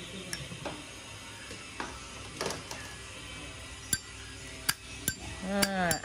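2013 brushed-chrome Zippo lighter: light crinkling of its paper seal being peeled off, then three sharp metallic clicks of the hinged lid snapping open and shut, about four to five seconds in.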